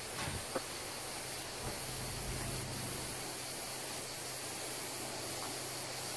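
Steady outdoor background hiss with a faint low hum under it, and a couple of faint clicks shortly after the start.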